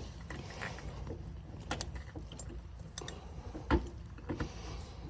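Scattered clicks and knocks of metal parts and hand tools during assembly of a generator's wheel and handle kit. One sharper knock comes about three-quarters of the way through, over a steady low hum.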